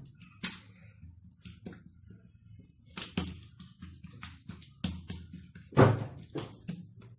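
Hands pressing and slapping oiled msemen dough flat on a granite countertop: scattered soft taps and knocks, the loudest about six seconds in.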